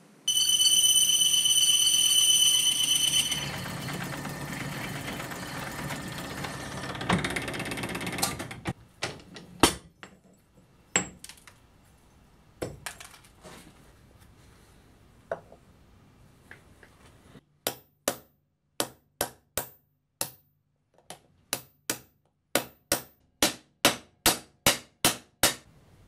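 Metal lathe cutting brass, with a high-pitched tool squeal for the first few seconds and then a quieter rough cutting noise. Scattered knocks follow, then a run of about twenty sharp metal taps that quicken to about three a second: a hammer driving the turned brass insert into the aluminium wheel hub's bearing bore.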